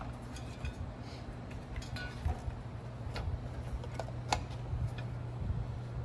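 Light clicks and taps of a replacement blower and its wiring being handled and set into a sheet-metal fan-kit housing, the sharpest about four seconds in, over a steady low hum.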